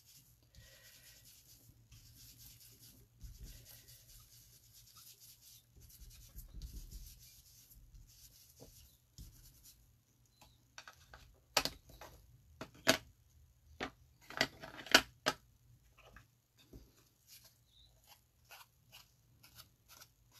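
Foam ink-blending tool rubbed over cardstock in short, soft strokes, then several sharp clicks and taps around the middle, followed by a run of quick light dabs.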